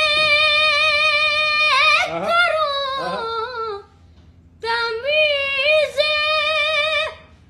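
A high solo voice sings an Urdu devotional kalam with no instruments. A long held note breaks into ornamented runs about two seconds in. After a short pause about halfway, a second wavering phrase follows.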